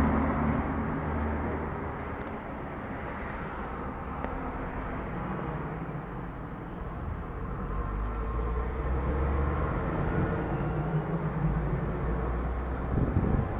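Road traffic: car engines running and passing, a low steady hum that grows louder again about halfway through.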